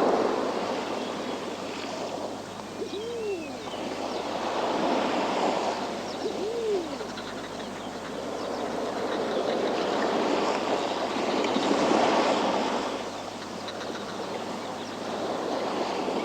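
Sea waves breaking and washing against a rocky shore, the surf swelling and easing every few seconds. Twice, a few seconds in, a short low hooting call rises and falls over the surf.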